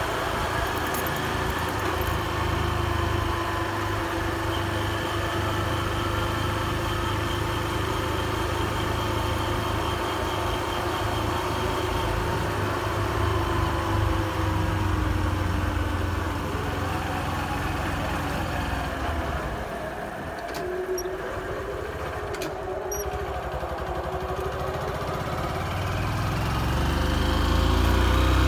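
Motorcycle engine running while riding, heard from the rider's seat with road and wind noise. The engine note glides down as the bike slows about two-thirds through, then rises as it accelerates near the end.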